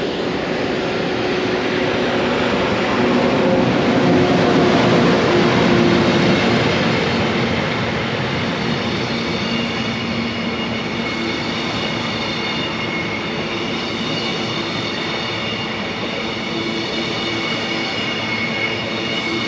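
A passenger train, the Caledonian Sleeper, passing close by. The locomotive goes by with a low hum that is loudest about four to six seconds in, then the coaches roll past with a steady high wheel squeal over the rumble.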